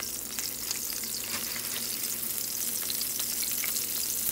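Melted butter sizzling in a hot non-stick skillet: a steady frying hiss dotted with small crackling pops.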